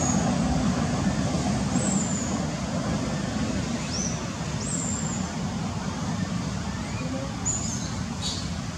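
Steady outdoor background rumble, with about five short, high, slightly falling chirps scattered through it.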